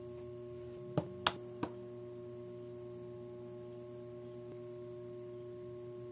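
Three sharp clicks of LEGO plastic pieces being handled, in quick succession about a second in, over a steady faint hum.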